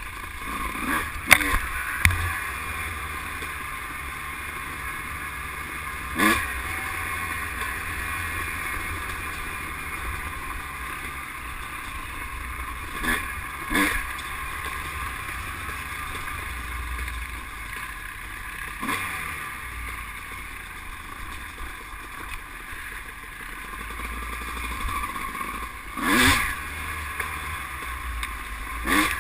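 ATV engine running steadily on a rough dirt trail, with wind rushing over the mounted camera's microphone. Several sharp knocks come at irregular intervals as the machine jolts over the trail, the loudest about a second in.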